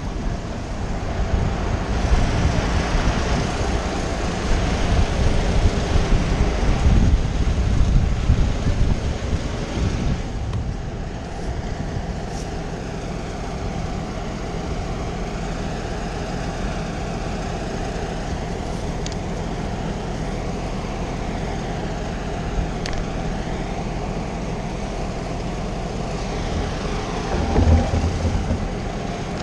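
An engine running steadily, a low, even hum, with a rougher, louder low rumble through the first ten seconds or so.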